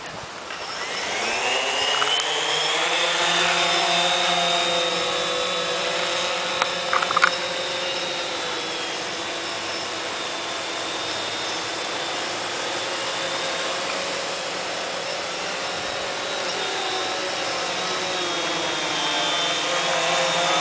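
Cheerson CX-20 quadcopter's four brushless motors and propellers spinning up from rest at takeoff, rising in pitch for a few seconds, then a steady whine of several tones as it flies, growing louder near the end. A few brief clicks about seven seconds in.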